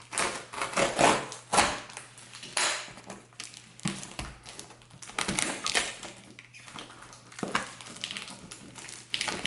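A cardboard shipping box being cut and pried open by hand: irregular scrapes, rustles and knocks of cardboard and packing tape.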